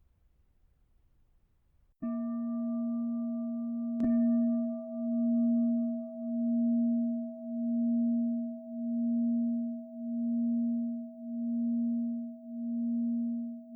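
A singing bowl struck twice, about two seconds in and again two seconds later, then ringing on in a long, steady low hum with a slow, even wavering in loudness. It marks the end of the meditation sitting.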